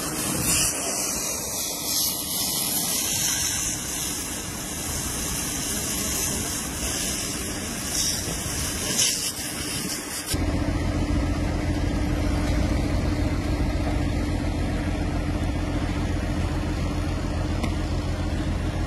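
Steady hiss of a fire hose's water jet over a burning building. About ten seconds in it cuts off abruptly and gives way to a steady low rumble of a fire engine's engine running.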